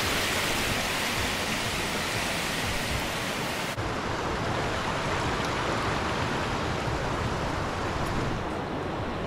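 Shallow bush creek running over stones: a steady rush of water that turns duller about four seconds in.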